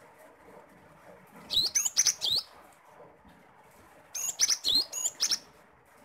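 Cinereous tit (gelatik batu) singing: two short bursts of loud, high whistled notes with rising and falling glides, about a second and a half in and again about four seconds in.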